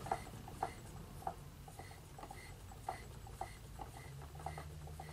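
Faint clicks, about two a second, with light rubbing as a silencer (moderator) tube is screwed by hand onto the threaded end of an air pistol's barrel.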